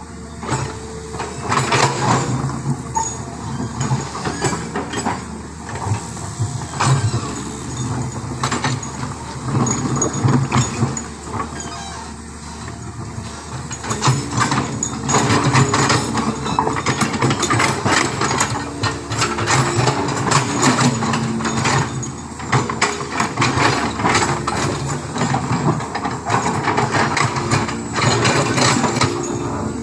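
Heavy diesel engine running, its speed rising and falling, with rattling and clatter over it.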